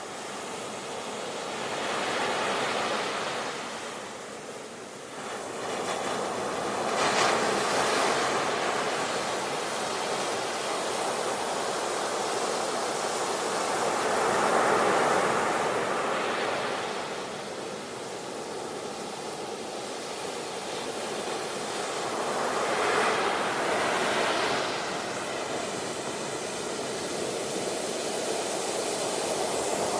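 Ocean waves breaking on a beach: a steady rush of surf that swells and falls back in slow surges, about four times.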